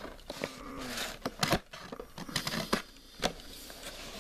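Cardboard trading-card display box being handled and its lid pried and flipped open: a string of sharp clicks, taps and scrapes of card stock, with light rustling between them.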